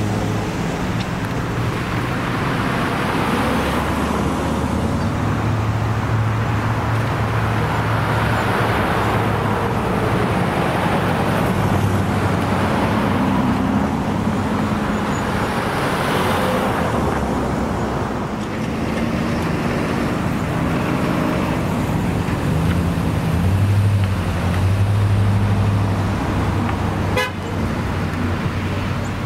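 Road traffic: vehicles passing one after another, their tyre noise swelling and fading several times over a steady low engine hum. A brief sharp click sounds near the end.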